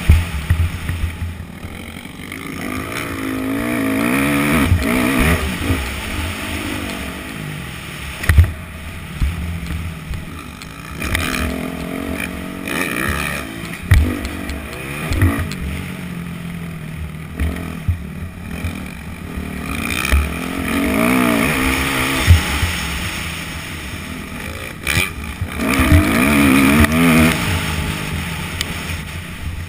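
Yamaha YZ250F four-stroke single-cylinder dirt bike engine, heard from a helmet camera, revving up and falling back again and again as the rider accelerates and shifts, with wind rush on the microphone. Several sharp knocks stand out above the engine, the loudest near the start and about 8, 14 and 22 seconds in.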